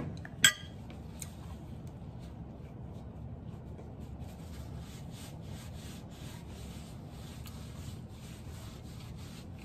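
A metal fork set down on a ceramic plate, one sharp clink about half a second in. After it, faint rubbing of hands and clothing over a steady low room hum.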